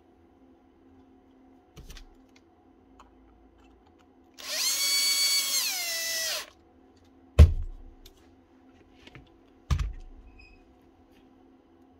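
DeWalt cordless power tool's electric motor run for about two seconds: a high whine whose pitch drops before it stops. Then two sharp knocks, the first the loudest, about two seconds apart.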